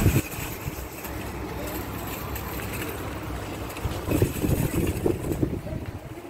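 Small shopping trolley's wheels rolling over a tiled floor, a steady low rumble with a knock at the start and a louder, uneven stretch about four seconds in.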